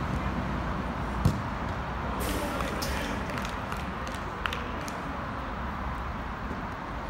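Outdoor ambience of a small-sided football game on an artificial pitch: a steady background noise with distant players' voices, and one sharp knock a little over a second in, like a ball being kicked.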